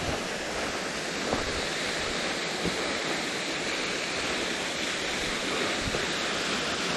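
Steady rushing of a waterfall pouring down onto rocks.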